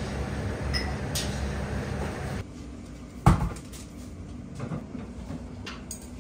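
Commercial kitchen clatter: a steady low hum with a few light clinks of dishes and one sharp knock, like crockery or a tray set down, a little over three seconds in.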